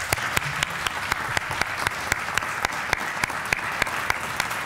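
Audience applauding steadily, with many separate sharp claps standing out.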